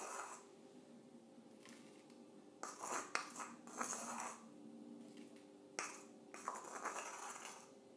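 Ground coffee being tapped and shaken out of a small metal container into a paper filter in a ceramic dripper: three short bursts of rattling and pattering, each starting with a sharp metallic tap.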